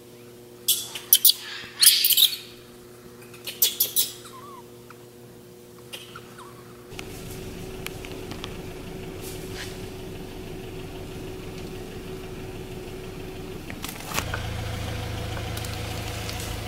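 A few loud, high animal calls in quick groups during the first four seconds, over a steady low hum. After about seven seconds a steady outdoor background noise takes over.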